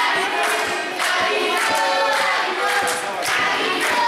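Crowd of supporters singing a chant together, many voices at once.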